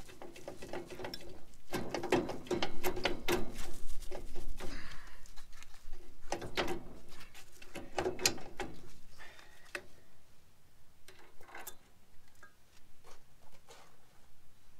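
Metallic clicking and clunking as a trailer's brake drum and hub are rocked and pulled on the axle spindle, with loose parts rattling inside. Dense runs of rattling come in two bursts in the first half, then only scattered clicks.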